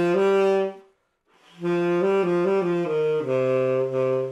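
Selmer Balanced Action tenor saxophone played with an open, free-blowing 'stovepipe' sound: a short two-note phrase, a brief break, then a longer phrase that steps down to a long low note. The player blows down on the sound so the pitch doesn't go sharp.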